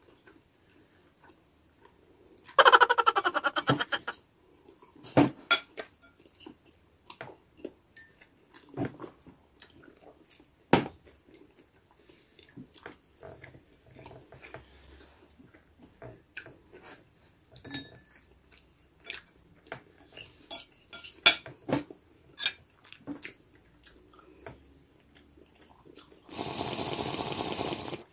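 Mukbang eating sounds: a metal fork clinking and scraping on ceramic plates and bowls many times, with a loud slurp of instant noodles about three seconds in. Near the end comes a long, loud slurp of a drink from a glass mug.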